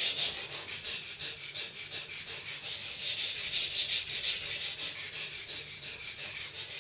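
A Buck knife's steel blade scraping back and forth on a wet waterstone loaded with green carbide slurry, in quick, even strokes of about three to four a second.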